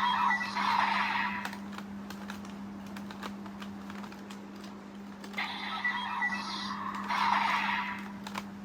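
DX Desire Driver toy belt playing two bursts of electronic sound effects from its small speaker, one at the start and one from about five to eight seconds in, with plastic clicks from the belt being handled and triggered in between. A steady low hum runs underneath.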